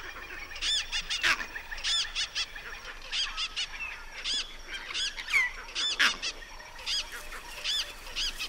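Dense racket of animal alarm calls: many short, high, arched calls overlapping, several a second, with two sharper, louder sounds about a second in and about six seconds in. The commotion is the bush's alarm at a leopard's arrival.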